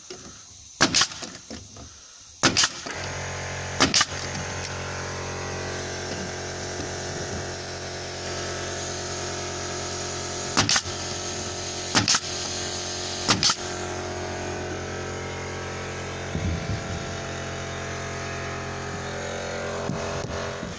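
50mm galvanised ring nails being driven into timber matchboard: six sharp single knocks in two groups of three, each about a second and a half apart. A steady machine hum starts suddenly after the second knock and runs under the rest.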